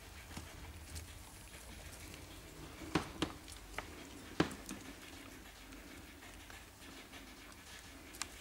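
A handful of sharp clicks and knocks, three close together about three to four and a half seconds in and one near the end, from small pet rodents scrambling over the wire bars and plastic of their cage, over a faint low hum.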